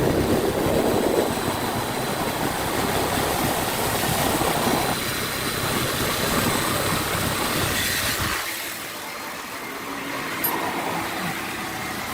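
Car engine idling with a steady rumble. The idle is part of a rough-idle, long-crank fault being chased to the crankshaft position sensor. About eight and a half seconds in, the low rumble becomes quieter and thinner.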